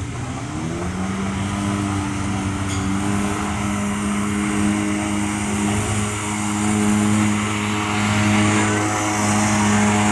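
ATV engine revving up over the first second, then held at high, steady revs while pulling a weighted sled down the dirt track.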